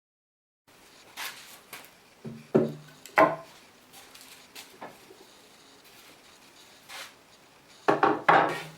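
Pieces of wood being handled and set down: a series of hollow wooden knocks and clatters, the loudest about two and a half and three seconds in and a quick double knock near the end.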